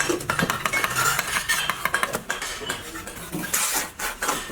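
Quick, repeated clinks and scrapes of metal against hard surfaces, many strokes in a row.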